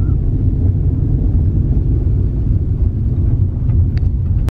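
Steady low rumble of a car driving over a packed dirt road, heard from inside the cabin, with a couple of faint clicks near the end before it cuts off suddenly.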